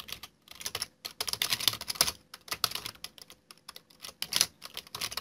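Typing on a computer keyboard: quick, irregular keystrokes in short runs with brief pauses between.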